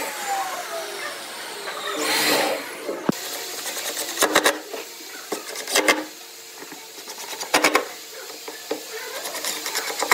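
A cordless drill whirs as it bores into a pine shelf for the first few seconds. Then a Makita 18V cordless impact driver drives screws into the wood in four short hammering bursts, about one every second and a half.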